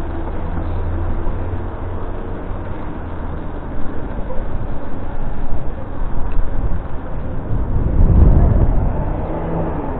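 Street traffic noise and rushing wind on the microphone of a moving rider. There is a continuous low rumble that turns louder and choppier about four seconds in and is loudest around eight seconds in.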